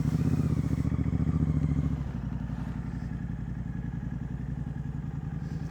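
Royal Enfield GT 650's parallel-twin engine running on the road through a Red Rooster aftermarket exhaust, with steady firing pulses. It is louder for about the first two seconds, then settles to steadier, quieter running.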